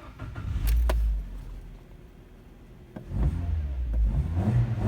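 Mitsubishi Lancer engine running after a new ignition coil for cylinder 2 and new iridium spark plugs, tested for misfire. It swells for about a second shortly after the start, drops back, and runs louder again from about three seconds in; the mechanic judges it to be running fine.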